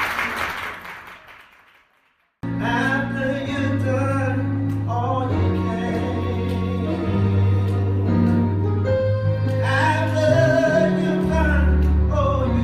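Applause and music fade out to about half a second of silence; then a song begins abruptly, with a voice singing over sustained bass and instrumental notes.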